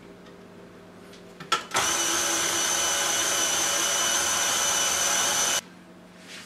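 KitchenAid Classic tilt-head stand mixer switched on with a click about a second and a half in, its motor running with a steady whine as the beater works thick cake batter. About four seconds later it is switched off and stops abruptly.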